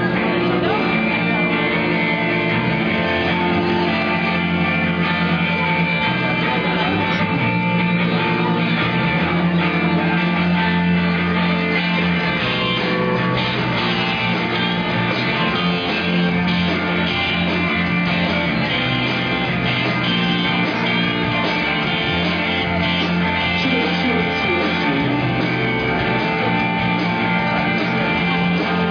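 A rock band playing live, guitar to the fore, in a steady instrumental passage with no singing.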